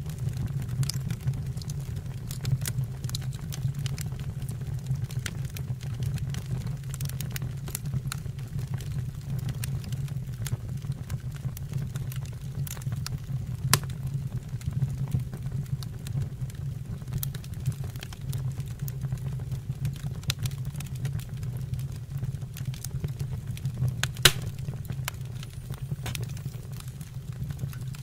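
Wood fire burning in a fireplace: a steady low rumble with frequent small crackles, and two louder pops, one about halfway through and one near the end.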